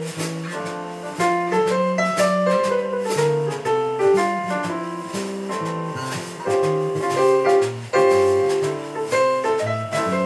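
Live jazz from a small band: an electric bass line under keyboard chords and melody, with a drum kit's cymbals and drums keeping time.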